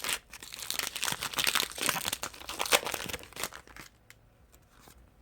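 A foil Pokémon booster pack wrapper being torn open and crinkled: dense crackling for about three and a half seconds, then only a few faint rustles.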